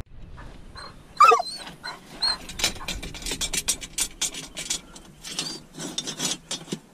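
Iron bar scraping and knocking against rock inside a crevice: many short scrapes and taps. A dog gives one short whine about a second in, and a few faint high squeaks come through.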